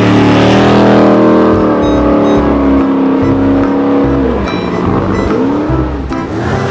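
Motor-vehicle engine sound effect revving, its pitch falling and rising several times.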